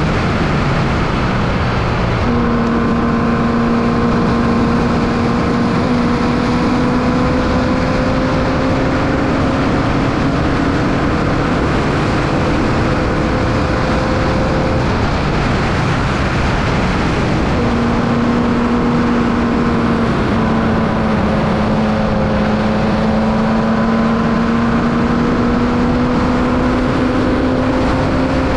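Formula Vee race car's 1200cc Volkswagen air-cooled flat-four engine running hard, its pitch climbing slowly over long stretches, breaking off about halfway through and then climbing again, under a loud steady rushing noise.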